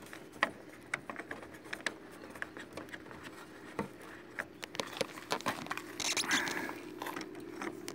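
Phillips screwdriver turning a small screw out of a van's number-plate light: faint, irregular clicks and scrapes, over a steady low hum, with a short rustle about six seconds in.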